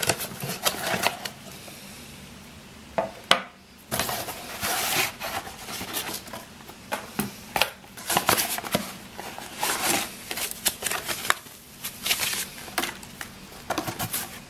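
Unpacking and handling noise: packaging rustling in irregular bursts, with short knocks and clicks as a folding knife and a leather sheath are set down on a wooden tabletop, the sharpest click about three seconds in.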